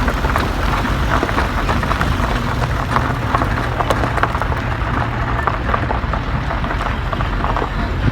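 A vehicle running steadily with a low engine hum, road noise and frequent small rattles, as heard while riding in it.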